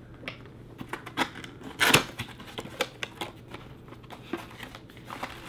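Cardboard box being opened by hand: scattered clicks, scrapes and rustles of the flaps and packaging, with a louder rustle about two seconds in.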